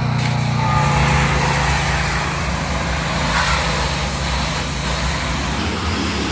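Honda-powered pressure washer's small gasoline engine running steadily, just cold-started on the first pull, with a steady hiss over it. Its note changes about a second in.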